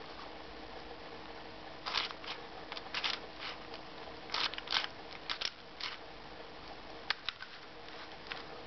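Plastic clicks and clacks of a hand-turned Crazy 2x3x3-based pentagon twisty puzzle as its layers are twisted, in quick clusters from about two seconds in until six, then a few more near the end. A faint steady hum lies underneath.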